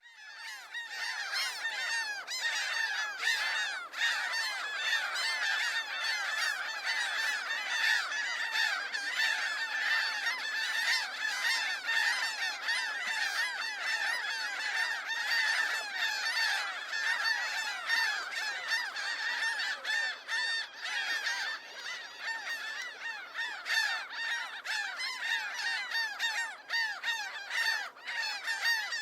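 A large flock of geese honking, many birds calling at once in a dense, continuous clamour.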